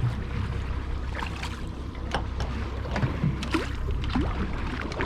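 A small fishing boat at sea: a steady low rumble with wind and water noise, and scattered small knocks and clicks.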